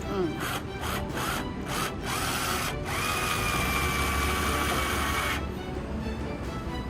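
Electric drill: a few short trigger bursts, then about three seconds in it runs steadily with a level whine for roughly two and a half seconds before stopping, boring a pilot hole in wood.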